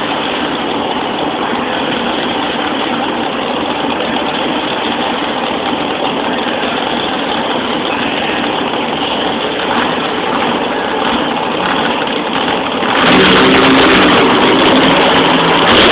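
Grave Digger monster truck's supercharged V8 engine running steadily at idle, getting louder and fuller near the end.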